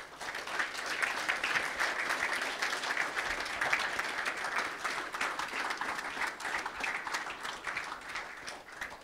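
Audience clapping steadily, thinning out and stopping near the end.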